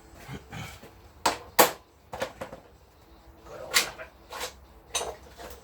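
Hand tools clinking and knocking as they are handled, about six separate sharp knocks, the loudest about a second and a half in.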